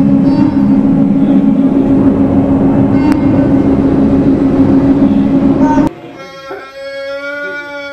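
Loud, steady rumbling noise with a low hum for about six seconds. It cuts off abruptly into a quieter held musical note with a slight waver.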